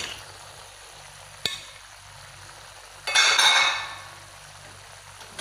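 Crispy fried tempeh and Medan anchovies tipped from a plate into a wok: a single sharp knock about a second and a half in, then a loud rush of the dry pieces sliding and landing in the pan, lasting under a second, about three seconds in.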